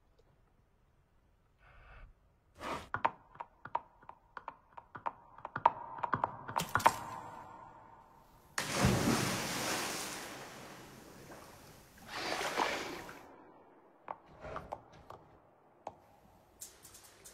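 A run of sharp knocks that come faster and louder, then a loud splash into a pool about eight and a half seconds in, fading over a second or two. A second, smaller splash comes about twelve seconds in.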